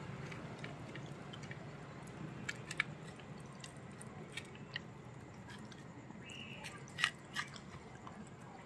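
A dog eating fish scraps from a steel bowl: faint chewing with scattered small clicks, the sharpest about seven seconds in.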